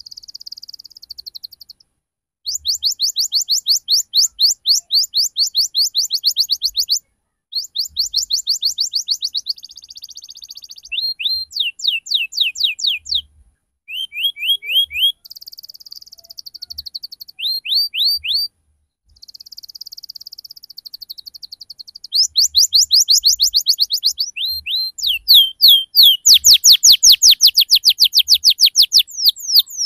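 Domestic canary singing a rolling song: phrases of rapidly repeated high sweeping notes, a few seconds each, broken by short pauses and mixed with buzzy rattles and slower downward-slurred notes. The phrases grow louder in the last few seconds.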